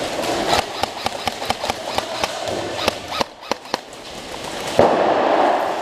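Airsoft guns firing in quick strings of sharp snapping shots, dense for the first three seconds and thinning to a few single shots, then a louder crack near the end.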